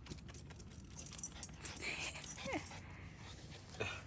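A dog gives a short whimper that falls in pitch, about two and a half seconds in, amid light clicks.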